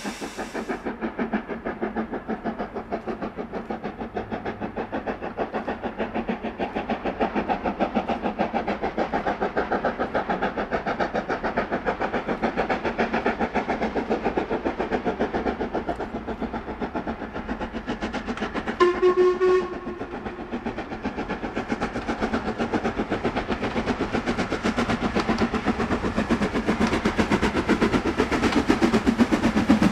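LMS Black 5 4-6-0 steam locomotive 44871 working a train toward the listener, its exhaust beating fast and evenly and growing louder as it nears. About two-thirds of the way through it gives one short whistle blast of about a second.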